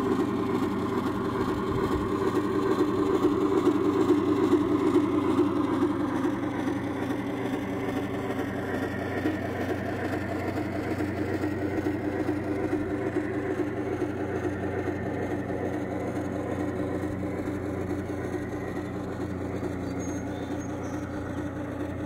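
Large-scale garden model train running across a metal truss bridge: a steady rumble of wheels on track that gradually fades as the train moves away, over a steady low hum.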